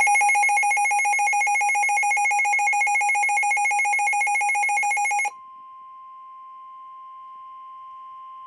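Midland WR400 weather radio sounding its loud, rapidly pulsing electronic alert, the signal of an incoming tornado warning. About five seconds in, the alert cuts off and gives way to a much quieter steady single-pitched tone, the NOAA Weather Radio warning alarm tone of about 1 kHz.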